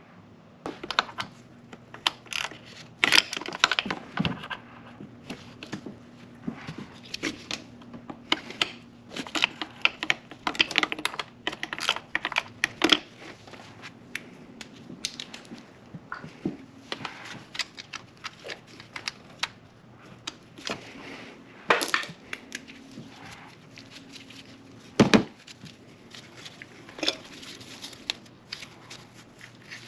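Hand tools and small metal parts clicking, knocking and rattling as work goes on by hand in a car's engine bay, in irregular sharp clicks with a few louder knocks, over a faint steady low hum.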